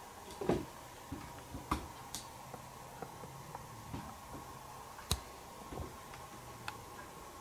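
Quiet room with a faint steady hum, broken by a dozen or so small creaks and clicks of a wicker chair as a seated person shifts and settles. The sharpest clicks come about half a second in and about five seconds in.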